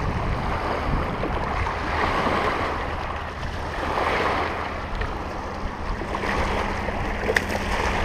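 Small lake waves washing onto a rocky shore, surging every couple of seconds, with wind rumbling on the microphone.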